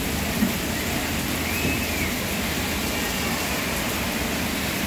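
Heavy rain pouring down with a steady hiss, splashing on the parked cars and the wet tarmac. There is a single short knock about half a second in.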